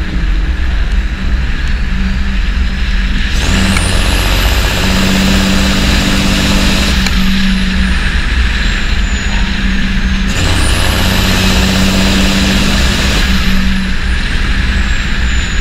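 Large vehicle engine running steadily and loudly, with a high whine that rises and then falls twice. The same pattern repeats about every seven seconds, like a looped engine recording.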